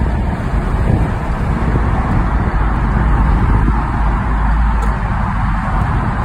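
Steady road and tyre noise of a car driving through a road tunnel, heard from inside the car.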